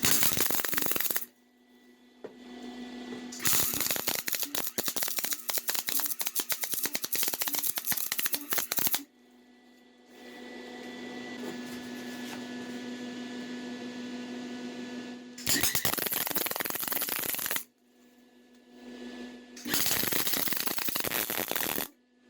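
Welding arc crackling in four bursts, the longest about five seconds, as gussets are welded onto a mini bike frame. A steady low hum fills the pauses between the welds.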